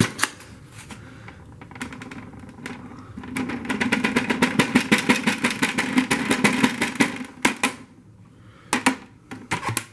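Clear plastic dust bin of a Dyson Cinetic Big Ball canister vacuum being shaken and tapped to empty fine dust onto a paper plate: a rapid rattle of plastic taps lasting about four seconds, with a few separate clicks before and after.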